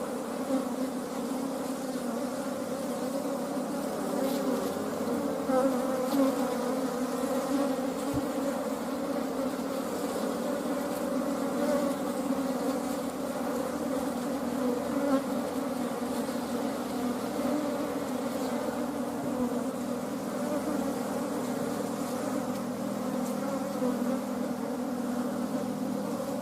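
A mass of honeybees buzzing together in a steady, continuous hum.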